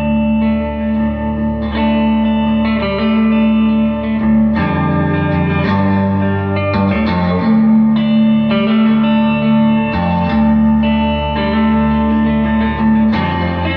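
Electric guitar played through a 1964 Gibson GA77 RVT Vanguard valve amplifier: clean, sustained chords and single notes, changing about every second.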